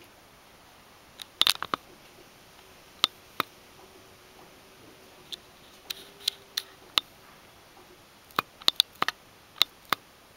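A quiet room with about twenty sharp, irregularly spaced clicks and ticks, some in quick clusters of two or three, over a low steady hiss; a faint steady hum comes in for a few seconds in the middle.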